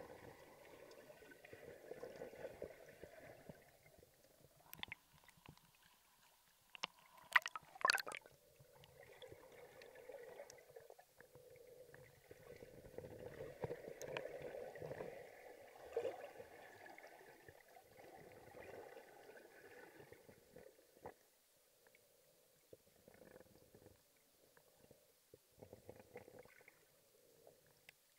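Muffled underwater sound of sea water stirred by a diving snorkeller: a low, uneven rumbling and gurgling that swells and fades, with a few sharp clicks about seven and eight seconds in.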